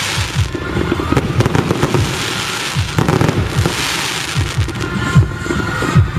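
Fireworks going off in a dense barrage: rapid bangs and crackling, with surges of hissing noise about a second apart.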